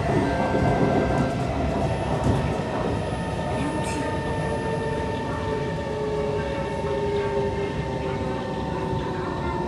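Inside a Kawasaki–Nippon Sharyo C151 metro train running on an elevated track: steady running rumble of wheels and motors with a steady whine from the traction equipment. One of the whine's tones eases slightly lower in pitch in the second half.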